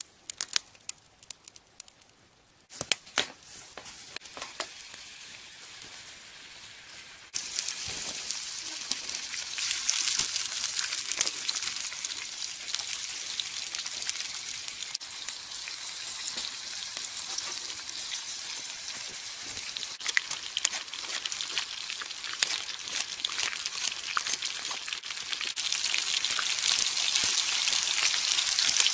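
Chopped onion and sausages sizzling in a frying pan over a small wood-burning stove. After a few light clicks near the start, the sizzle begins faintly, gets suddenly louder about seven seconds in, and keeps growing louder as the pan heats.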